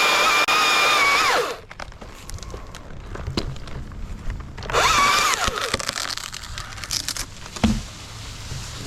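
Battery-powered chainsaw running with a steady high whine, then winding down about a second and a half in as the battery goes flat. It spins up briefly again around five seconds in and dies once more, with light clicks and knocks in between.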